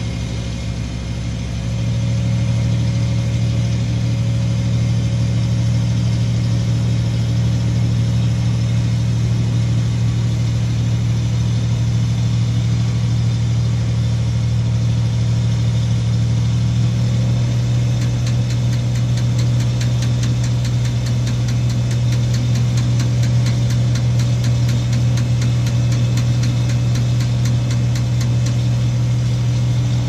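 Boom truck's diesel engine running steadily, heard from inside the crane cab; it picks up and gets louder about two seconds in. About halfway through, the engine note shifts as the crane lifts the rooftop air-conditioning unit, and a rapid, light ticking comes in.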